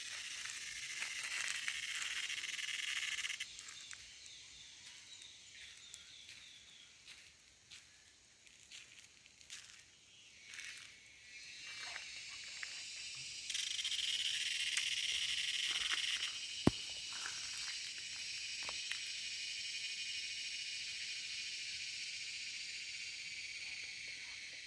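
Cicada buzzing in loud, high-pitched phrases. A strong burst comes at the start, and another about halfway through that settles into a long steady drone slowly fading toward the end. A single sharp click sounds about two-thirds of the way in.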